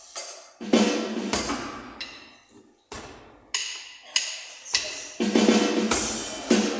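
Artesia Legacy A50 electronic drum kit played and heard in the room. A drum beat thins out into a few separate ringing drum hits in the middle, then the full groove comes back about five seconds in.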